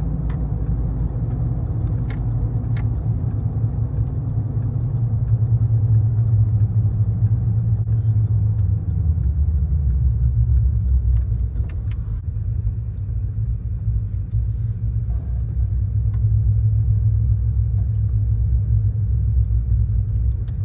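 Steady low rumble of a car's engine and tyres on the road, heard from inside the cabin while driving, with a few light clicks and rattles.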